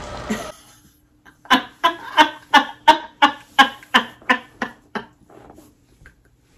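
A woman laughing hard: a fast run of about eleven loud 'ha' bursts, roughly three a second, that starts about a second and a half in and trails off near the end.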